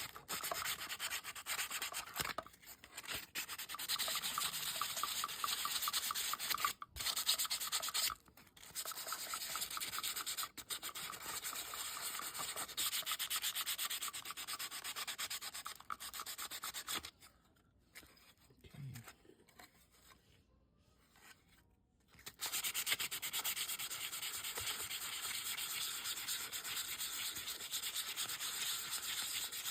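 Sandpaper rubbing back and forth by hand on a small scale RC crawler body shell, in quick, even strokes. It stops for about five seconds past the middle, then starts again.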